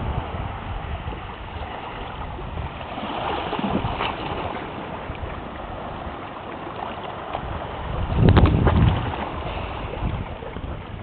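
Wind buffeting the camera microphone in uneven gusts, a low rumbling noise with a strong gust about eight seconds in.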